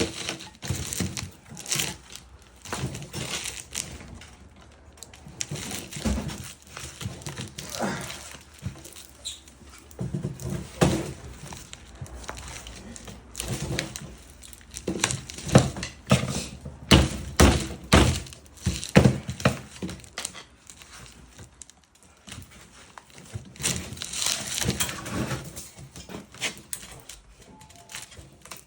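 Flathead screwdriver prying and knocking at the parts of a compressor being dismantled: irregular metal clinks, scrapes and thunks.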